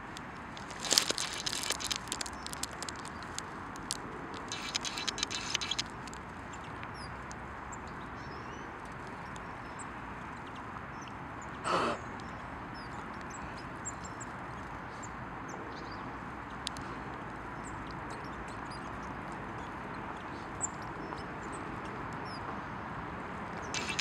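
Small birds chirping faintly over a steady outdoor background. Two brief bursts of rapid high crackling come in the first six seconds, and a single short, loud call sounds just before the midpoint.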